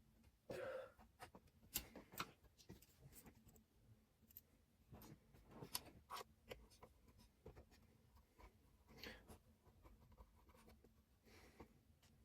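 Faint, scattered clicks, taps and short scrapes of hands handling small computer parts, screws and cables inside a compact PC case. There is a brief cluster of scratchy rubbing about half a second in, and more near 9 s and near the end.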